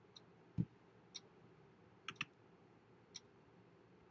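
A clock ticking faintly, about once a second, with a quick double tick near the middle. A soft low thump comes about half a second in.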